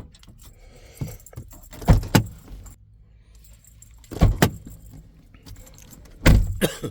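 Keys jangling with sharp clunks in three bursts about two seconds apart, each a quick double hit, as the key fob is worked to lock and unlock a 2017 Dodge Grand Caravan's power door locks.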